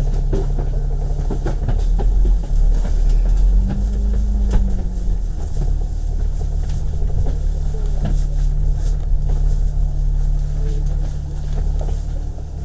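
Double-decker bus's diesel engine heard from inside on the upper deck as the bus pulls away from a stop: a steady low drone that swells about two seconds in, with a hum that rises and falls around four seconds, then settles back to a steady drone.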